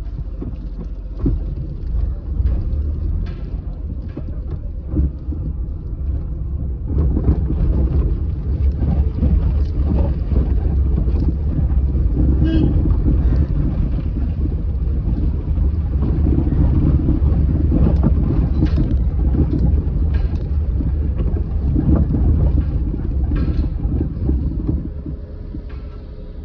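Steady road and engine rumble inside a moving car's cabin, growing louder about seven seconds in, with a few short knocks.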